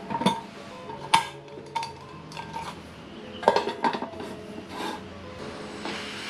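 Metal camping pot and lid clinking and knocking as they are handled, about seven sharp clinks with a brief ring. Near the end a hiss begins as the stove's gas valve is opened.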